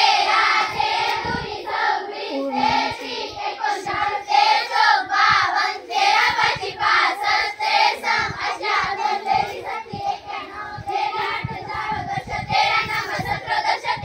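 A large group of schoolchildren chanting multiplication tables together in a sing-song unison.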